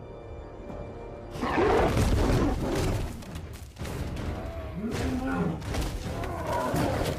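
Tense background music, then from about a second and a half in a loud big-cat roar sound effect, followed by more growling animal calls over the music.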